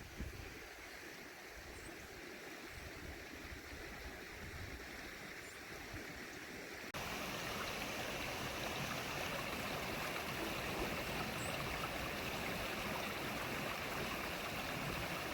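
Flood-swollen creek and runoff rushing steadily. The noise gets abruptly louder about seven seconds in.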